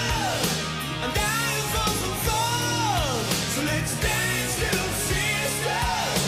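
Glam metal song playing: a singer over electric guitar, bass and a steady drum beat, with sung lines sliding up and down in pitch.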